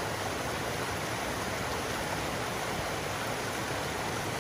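A mountain brook running high with plenty of water: a steady, even rush of water.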